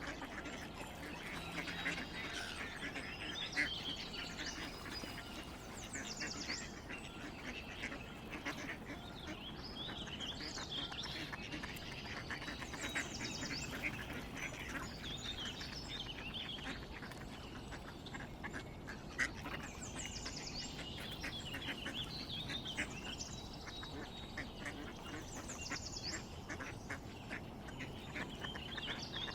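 Ducks quacking among a chorus of chirping, trilling birds, the calls coming thick and continuous.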